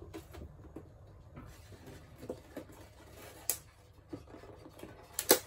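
Thin PVC wall panel being pressed and fitted against the wall by hand: scattered light plastic taps and clicks, a sharper click about three and a half seconds in, and a louder double knock near the end.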